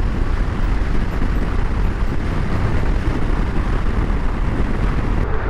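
Steady wind rush and running noise of a Yamaha FJR1300 sport-touring motorcycle cruising at road speed, heaviest in the low end where the wind buffets the microphone.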